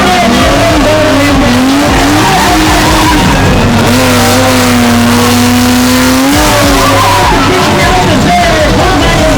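BMW E30 spinning: the engine is held at high revs, the pitch wavering up and down and then held steady for a couple of seconds mid-way, over continuous tyre screech.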